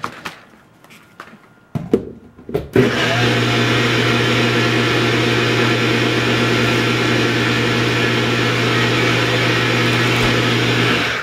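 A Nutribullet blender: a few clicks as the cup goes onto the base, then the motor runs steadily for about eight seconds with a constant low hum, blending a liquid protein shake, and stops near the end.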